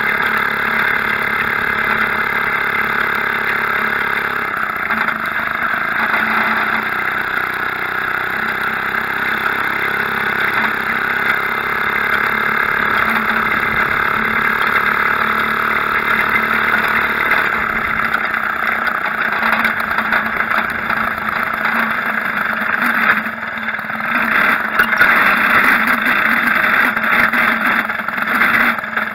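Maytag Model 72 twin-cylinder two-stroke washing-machine engine running steadily under load on a homemade motor bicycle as it is ridden. Its pitch shifts with engine speed a couple of times.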